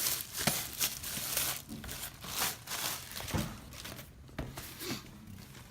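Plastic wrap on a cardboard box crinkling and tearing as it is pulled off by hand, in a run of quick crackles that thins out about four seconds in.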